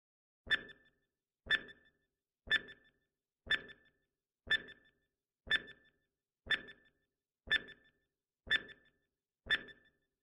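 Countdown timer sound effect: a short electronic tick-beep once a second, ten times, marking the seconds of the quiz timer running down.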